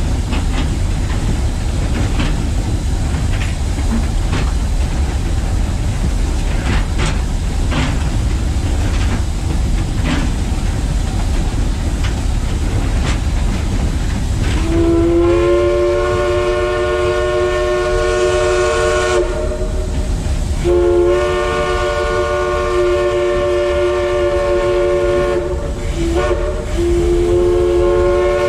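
Cab of the Southern 4501 2-8-2 steam locomotive under way: a steady deep rumble with rattles and clanks from the running gear and rails. About halfway through, the engineer opens the steam whistle, which rises into pitch and then sounds in long blasts broken twice, including one short blast near the end.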